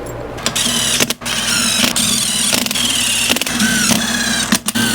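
Cordless electric drill-driver spinning screws into the engine cases: a high motor whine that rises and falls in pitch. It runs in several spells, with brief stops between screws.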